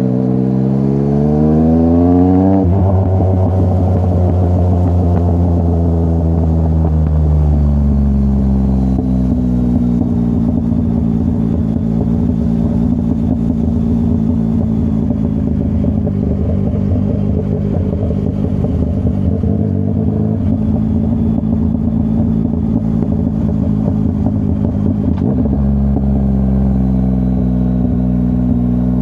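Yamaha MT-09's CP3 three-cylinder engine through a full Akrapovic exhaust, rising in pitch as it accelerates. About two and a half seconds in the pitch drops at a gear change, climbs again to a steady cruise, then shifts suddenly near the end and rises once more.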